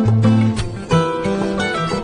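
Background music of plucked strings, with a sharp attack on each note and held low notes underneath.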